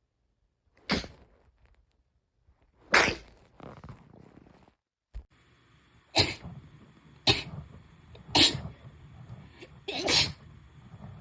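A series of six sharp sneezes, one to two seconds apart, with a short click about five seconds in.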